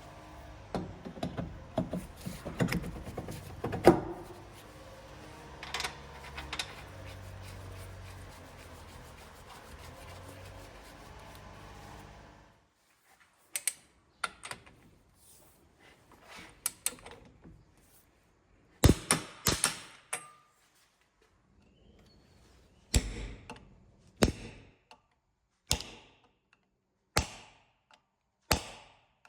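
Steady low noise with scattered clicks and clatter, which stops about twelve seconds in; after that come a series of sharp single knocks, one every second or two, from metal parts or tools being struck.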